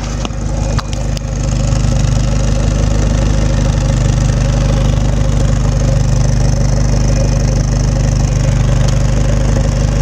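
Car engine idling steadily. A few light clicks come in the first second while the sound grows louder, then it holds even.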